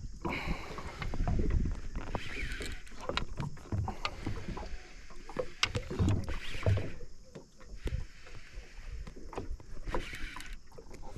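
Irregular knocks, clunks and rattles of movement in a small aluminium boat, with some faint water noise, while a hooked barramundi is being played.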